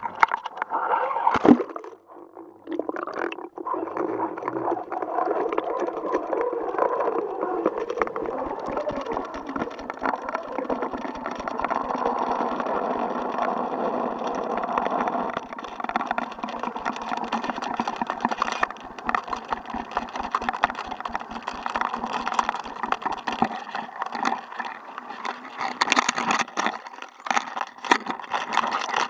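Action camera splashing into the sea, then a steady rushing hum of water and fishing line as the rig sinks with a weighted jig, with a fast, even low ticking through most of the descent.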